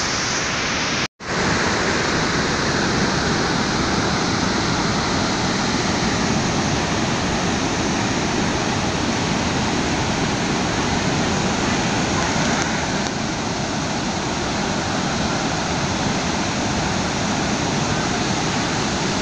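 Steady rushing of flood water released through one wide-open spillway gate of a large masonry dam, plunging down the spillway face into the river with heavy spray. There is a brief break in the sound about a second in.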